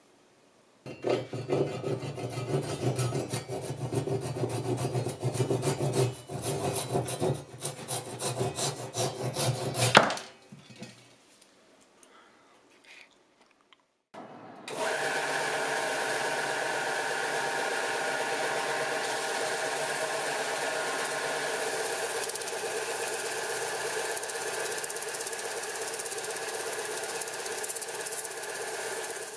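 Japanese pull saw cutting through a block of epoxy-set colored pencils in quick rasping strokes, ending in a sharp knock about ten seconds in. After a short pause, a belt sander runs steadily, grinding the pencil-and-resin knife handle.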